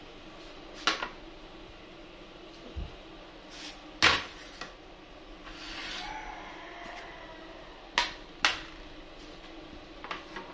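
Dishes and a plastic serving tray being handled on a stone kitchen counter: a handful of sharp knocks and clinks, the loudest about four seconds in and two quick ones near eight seconds, with a brief scrape around six seconds.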